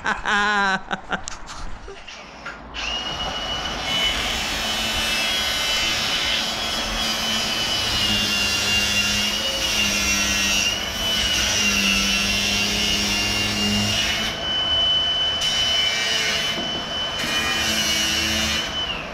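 A power tool running steadily with a constant high whine, likely cutting, starting about three seconds in and easing off briefly twice near the end.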